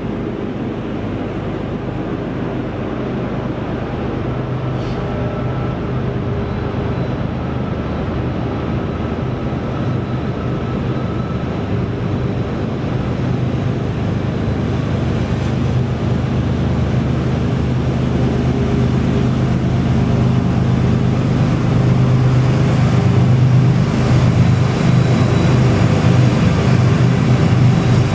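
BNSF diesel locomotives working hard as they haul an eastbound stack train up a mountain grade. Their steady engine drone grows gradually louder as they approach.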